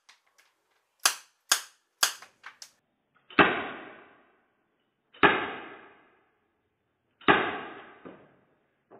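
Dan Wesson 2.5-inch CO2 airsoft revolver firing three sharp cracks about half a second apart, followed by two light clicks. Then three shots are replayed in slow motion, lower and drawn out, each trailing off over about a second.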